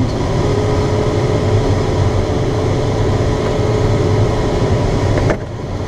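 Air rushing past a glider's cockpit in flight, a steady loud rush with a rumble under it and a faint steady tone above. About five seconds in, the rush drops off abruptly and grows quieter.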